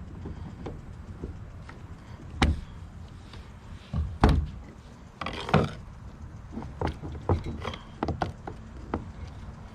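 Scattered knocks and clanks of tools and hardware during work on a boat's bow rail fittings and bolts. There are a few sharper knocks and a short noisy stretch a little past halfway.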